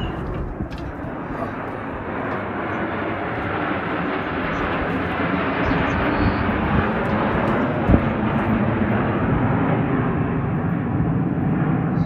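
Jet noise from the Snowbirds' formation of CT-114 Tutor jets passing overhead: a steady rushing rumble that grows gradually louder. A brief knock about eight seconds in.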